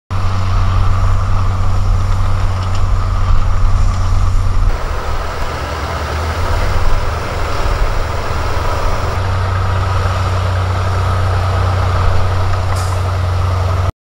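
Heavy diesel crawler bulldozer engines running steadily, with a deep low rumble. The engine sound changes abruptly about four and a half and nine seconds in as one machine gives way to another.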